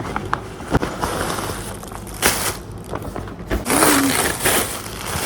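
Packaging being handled: irregular rustling and crinkling, with a few sharp clicks, over a steady low hum.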